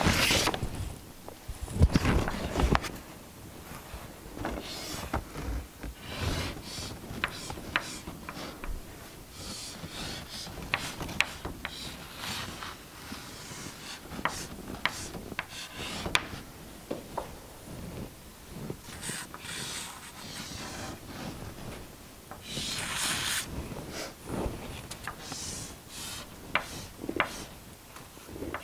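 Chalk drawing lines on a chalkboard: many short sharp taps and scratchy strokes, with a few longer, louder scrapes in the last third.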